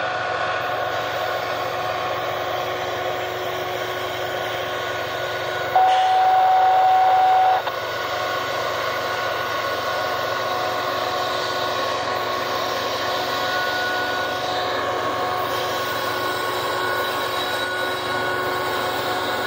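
Norfolk Southern diesel locomotives working hard up the Christiansburg Grade, giving a steady engine drone with a constant whine. About six seconds in, a louder steady note sounds for about two seconds.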